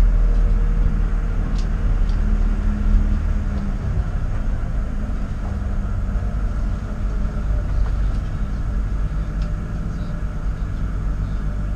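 A vehicle's engine running steadily at speed, with a heavy low rumble of road and wind noise, heard on board during a track session.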